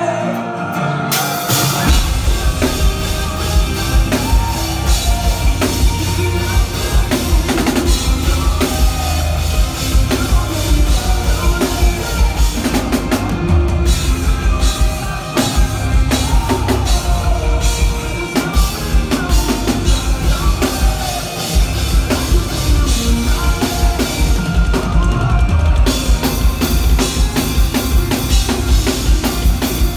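Live rock band playing at full volume, led by a drum kit with heavy, rapid bass drum strokes and snare; the full band comes in about two seconds in after a lighter passage.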